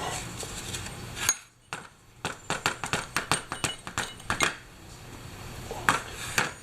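Small metal motorcycle parts clinking and clicking as they are handled and cleaned: a quick run of sharp clicks in the middle, with a few single clicks before and after.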